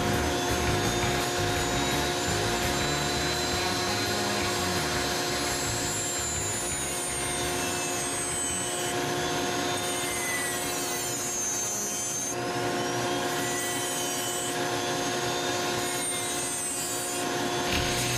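A Foredom flexible-shaft rotary tool with a carbide burr grinding into a white cedar block. It makes a continuous rough rasping over a steady machine hum.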